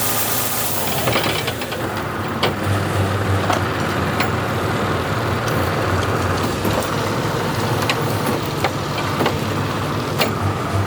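Tractor engine running steadily with a pulsing low hum while it drives a Berardinucci Tornado implement, with scattered sharp clicks and knocks.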